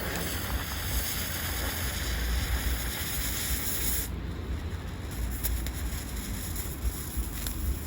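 A steady, bright hissing noise that stops suddenly about four seconds in, over a constant low rumble.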